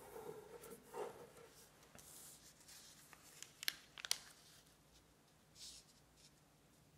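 A sheet of 18 cm square origami paper being folded by hand: soft rustling and sliding of the paper, then two sharp, crisp clicks a little under four seconds in as a crease is pressed flat, and a last brief rustle near the end.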